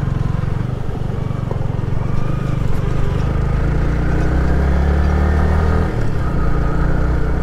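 Yamaha sport motorcycle riding along a rough road, its engine running steadily with road and wind noise; the low engine note shifts about six seconds in.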